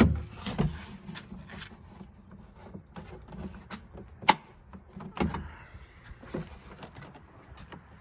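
Plastic molding panels on a Chevy Suburban's rear barn door being pulled off by hand, their retaining clips letting go with several sharp clicks and snaps, the loudest about four seconds in, with handling rustle between.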